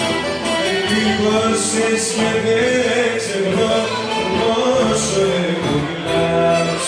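Greek folk song played at a dance feast: a voice singing over instrumental accompaniment.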